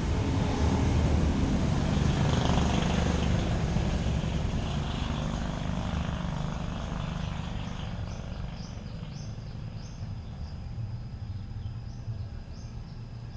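A loud droning motor noise slowly fades away over several seconds. It is followed by a small bird chirping repeatedly.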